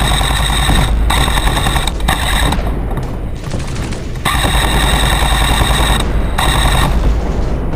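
An airsoft electric support gun, an M249/Mk46-style replica, firing long full-auto bursts with a fast, even buzz. About two and a half seconds in it stops for a second and a half, then fires two more bursts. A steady low rumble runs underneath.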